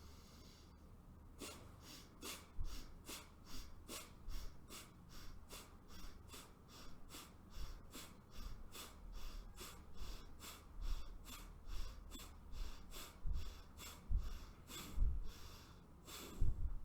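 Single-nostril Bhastrika pranayama: rapid, forceful breaths in and out through the left nostril, about three strokes a second, starting about a second and a half in and ending with a longer, louder breath near the end.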